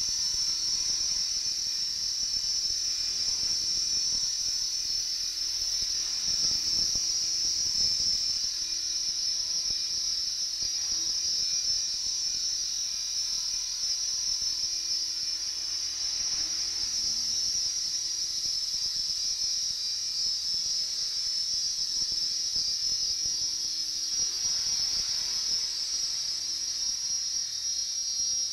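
Align T-Rex RC helicopter hovering: a steady high-pitched whine from its motor and rotor drive.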